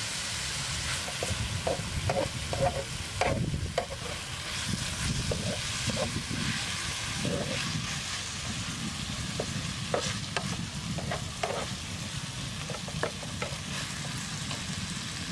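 Beef and ginger sizzling steadily in a frying pan on a portable gas stove, with a utensil scraping and knocking against the pan in the first few seconds. After that the sizzling runs on with scattered small clicks.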